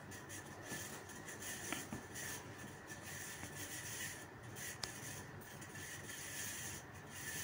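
Hot oil faintly sizzling in a pan of freshly cooked onion pickle, a steady low hiss with a few small pops, the flame just turned off.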